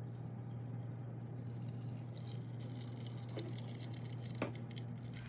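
Gasoline pouring from a metal can into a small translucent plastic fuel tank, a steady trickle of liquid, with a short click about four and a half seconds in.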